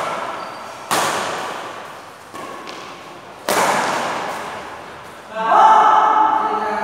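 Badminton rackets striking the shuttlecock during a rally: two sharp cracks about two and a half seconds apart, each ringing on in the large hall. Near the end a player shouts for over a second.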